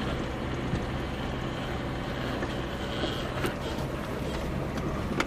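Lada Niva 21214's four-cylinder engine running steadily as the car drives along a rough track, with a few light knocks from the car.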